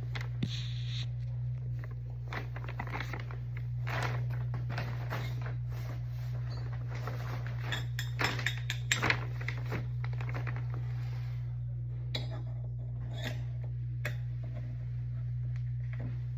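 Small metal clicks, taps and clinks of door lock-set parts being handled and fitted, with a cluster of sharper clicks about eight to nine seconds in, over a steady low hum.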